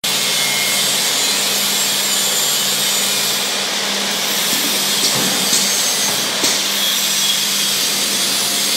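Automatic six-head piston-pump filling machine for motor-oil bottles running, with its conveyor bringing flat bottles in under the nozzles: a steady hiss over a low hum, with a few light clicks past the middle.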